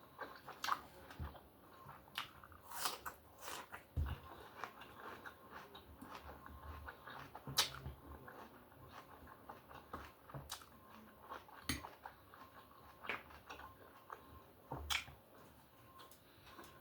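Close-miked chewing and mouth sounds of a person eating steak, with irregular sharp clicks scattered throughout.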